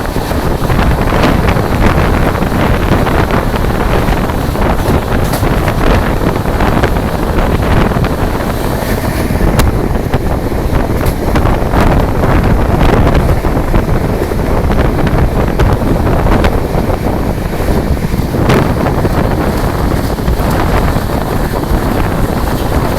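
Loud, steady rushing of wind and heavy rain over the microphone on a train running at speed, with scattered sharp clicks and knocks.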